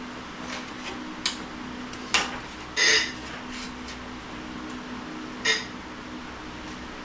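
Sheet steel being struck or handled: four sharp metallic clanks with lighter taps between, the third the longest and loudest, ringing briefly. A steady low hum runs underneath.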